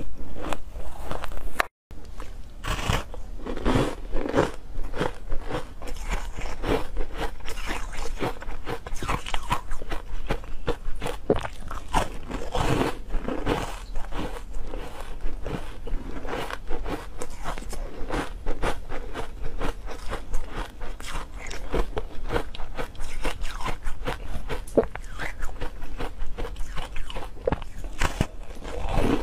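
Teeth biting and crunching through frozen ice, with dense, irregular crunches throughout. There is a brief break about two seconds in.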